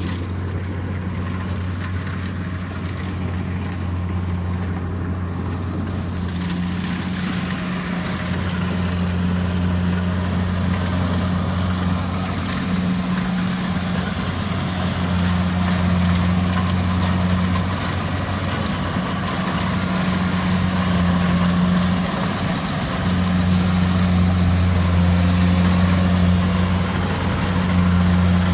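Kubota rice combine harvester's diesel engine running steadily with a deep, even hum, growing gradually louder. From about six seconds in, a busier mechanical noise builds over it.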